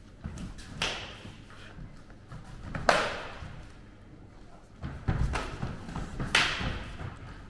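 Sharp hits and thuds of full-contact arnis stick sparring: a stick striking helmets, gloves and bodies, with scuffles on the mats. A handful of separate hits, the loudest about three seconds in, and a quick run of blows and thuds about five to six and a half seconds in.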